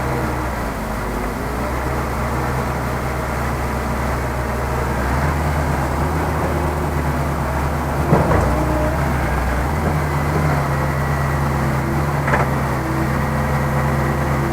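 Heavy diesel engine of the earthmoving machinery running steadily, its pitch shifting slightly a couple of times. There is a sharp clank about eight seconds in and another near the end.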